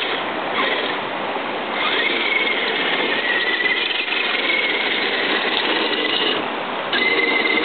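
Rushing creek water around a radio-controlled truck, with the high whine of the truck's small electric motor wavering in pitch. The whine starts about two seconds in, drops out past six seconds, and starts again about a second later.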